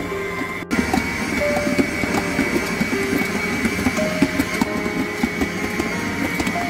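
Background music with a melody over the steady whine of a stand mixer's motor as its dough hook kneads bread dough. The sound drops out briefly about half a second in and comes back slightly louder.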